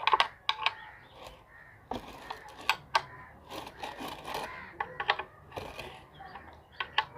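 Irregular metallic clicks, taps and clinks of hand tools against a washing machine motor's metal parts as it is worked on, a few strikes ringing briefly.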